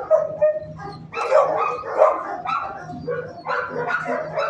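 Dogs barking in a shelter kennel: a run of short barks, about two a second, with stronger barks around a second and two seconds in.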